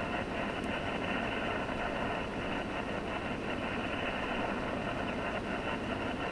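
HF radio's speaker tuned to the 20-meter FT8 frequency, 14.074 MHz, playing a steady hiss of band noise with faint FT8 data tones layered through it.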